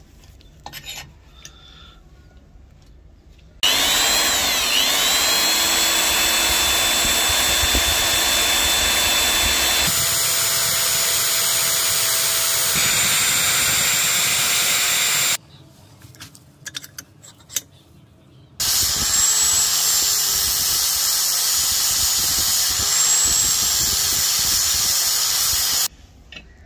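Electric drill boring into a metal hex nut clamped in a vise: two long runs with a steady high motor whine, the first about twelve seconds and the second about seven, with a few light knocks in the pause between.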